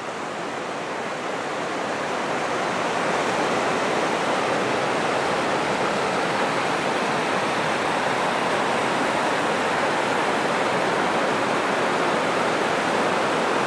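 Rushing water of river rapids, a steady, even rush that grows a little louder over the first couple of seconds and then holds.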